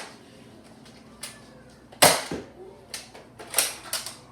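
Toy Nerf crossbow blaster firing a dart with a sharp snap about two seconds in, followed by several lighter plastic clicks.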